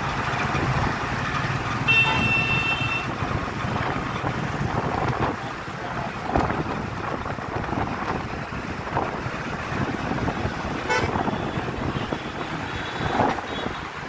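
Road and wind noise from riding in a moving vehicle, with a vehicle horn honking once for about a second, about two seconds in.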